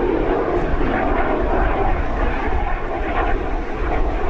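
Aero L-29 Delfin jet trainer passing overhead, its single turbojet engine making a steady rushing noise.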